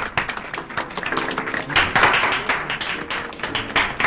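Scattered applause from a small seated audience, separate hand claps rather than a dense roar, with music playing underneath.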